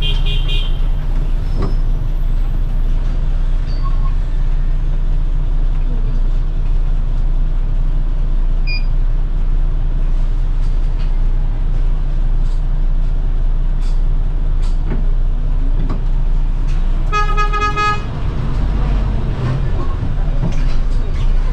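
City bus engine running steadily with a deep rumble, and a horn sounding once, briefly, about three-quarters of the way through. A short high beeping is heard at the very start.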